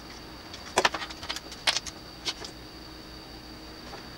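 Hands handling a light bulb and plugs and leads, a few sharp plastic clicks and clacks about a second in and again near two seconds, over a faint steady high-pitched whine.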